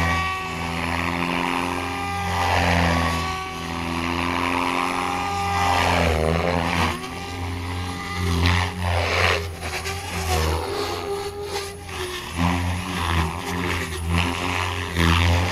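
OMP Hobby M4 electric RC helicopter flying 3D aerobatics close by. The rotor hum and whine swell and fade over and over as the blades load and unload, in long smooth surges at first and in quicker, choppier bursts in the second half.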